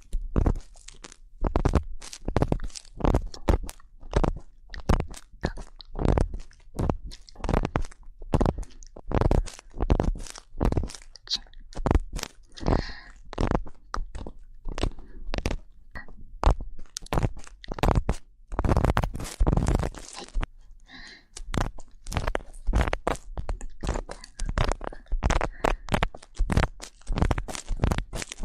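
Earpick scraping and rubbing inside a microphone's ear for ear-cleaning ASMR: quick crunchy scratches, about two or three a second.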